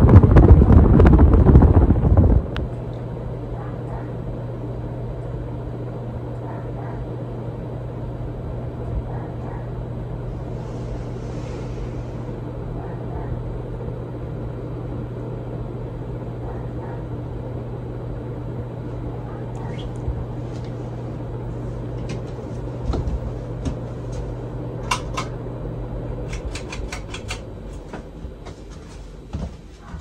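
Hunter 2nd Century Original ceiling fan motor running with a steady low hum. Loud wind noise on the microphone fills the first two seconds or so. About 26 seconds in, the hum stops, with a few short clicks around that moment, and the sound fades.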